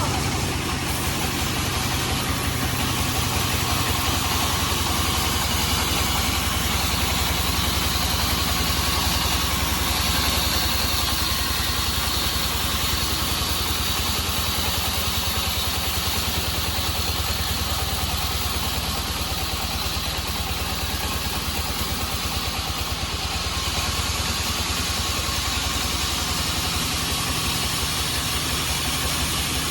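Band sawmill running steadily, with a low engine drone throughout and a higher whine that comes in about seven seconds in.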